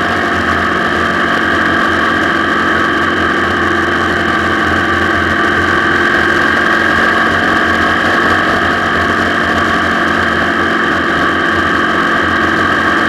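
Motorcycle engine running at a steady pitch while riding at a constant speed, heard from a camera mounted on the bike.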